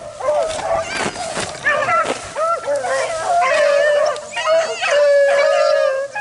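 A pack of beagles baying together as they run a rabbit, several dogs' drawn-out howling calls overlapping without a break.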